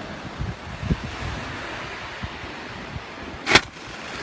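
Wind buffeting the microphone over steady surf noise at the shore, with irregular low thumps. About three and a half seconds in comes a single short, sharp whoosh, the loudest sound here.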